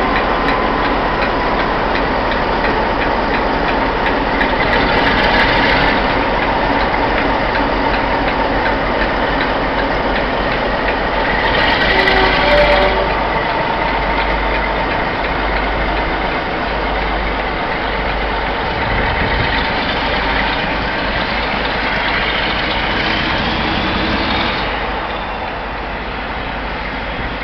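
Brush Type 4 Class 47 diesel locomotive's Sulzer twin-bank V12 engine working hard as it pulls away with a train of coaches, a loud steady engine din. The sound eases a little near the end as the coaches roll past.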